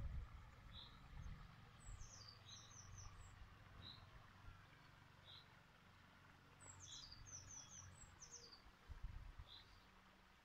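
Faint songbird calls: a short run of quick, high, falling notes about two seconds in and again near seven seconds, with single high chirps between, over a faint low rumble.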